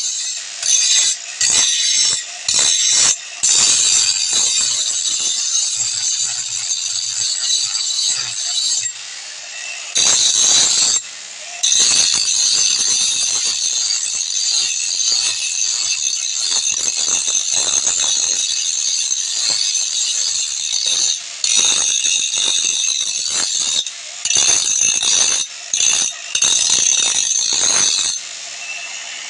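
Electric angle grinder's disc grinding the edge of a steel blade: a loud, harsh, high-pitched grinding in long bouts that dips briefly several times as the disc eases off the metal, the motor running on between them.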